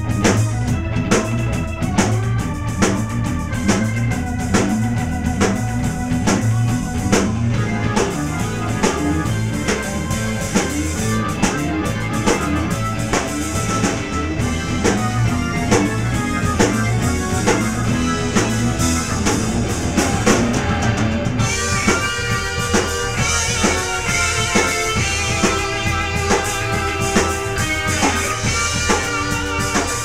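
Live rock band playing loudly: drum kit, bass, electric guitar and Hammond organ. About 21 seconds in, the sound turns brighter.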